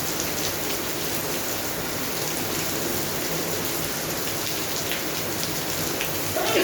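Steady rain falling on a garden, with many distinct drops pattering close by. A brief louder sound stands out just before the end.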